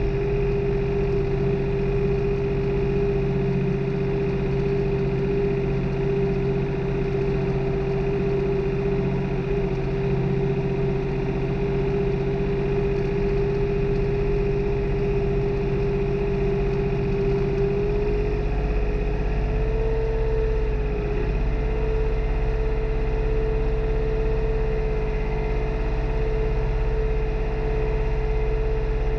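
New Holland diesel tractor running steadily during tillage, a low engine rumble under a strong steady whine. About 18 seconds in the pitch steps slightly higher and then holds.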